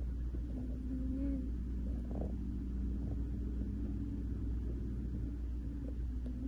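Domestic cat purring close to the microphone as a steady low rumble.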